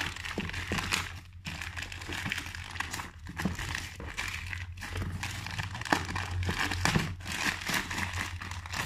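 Plastic packaging crinkling and crackling as it is peeled off a product box and pulled apart by hand, with some tearing.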